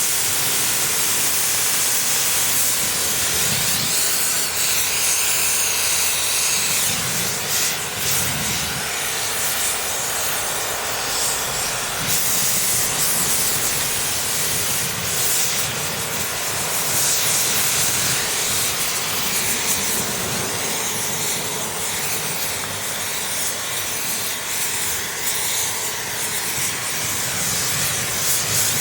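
Steady hiss of a gas torch flame and air jet blowing into a clogged aluminium two-stroke silencer, rising and falling a little. It is burning out the unburnt oil and carbon packed in the perforated inner tube.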